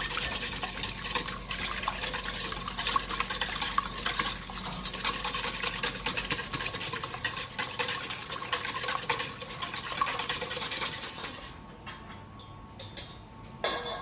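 A whisk beating eggs with salt in a bowl, a fast, steady scraping and clicking as they are whipped until just frothy. The whisking stops near the end, leaving a few light knocks.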